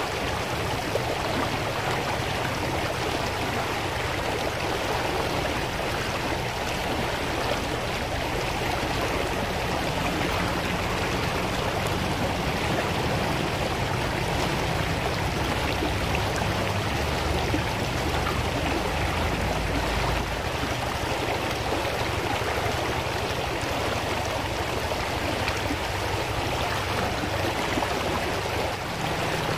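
Shallow rocky river rushing steadily over stones and small rapids.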